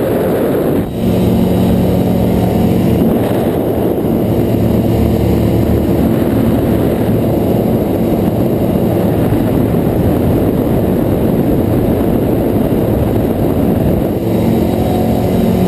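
Ultralight aircraft's propeller engine running steadily in flight, a constant drone mixed with wind rush past the airframe, with a brief break about a second in.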